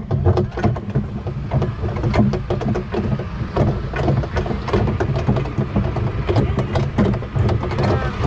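A New Holland compact tractor's engine runs steadily as it tows a train of barrel cars, with the cars rattling and clattering over the rough ground.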